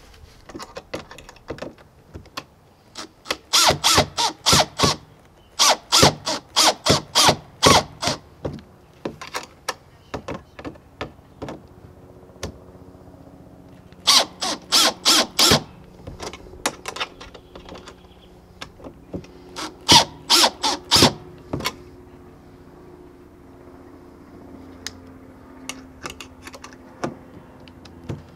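Makita cordless drill driving screws into a plastic kayak mount bracket, in several bursts of sharp clicks about four or five a second, with a low motor hum between the bursts in the second half.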